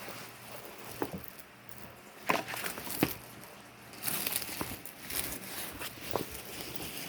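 Plastic crinkling and rustling with scattered small clicks, from diamond painting supplies such as bags of drills being handled. The busiest handling comes about two seconds in and again from about four seconds in.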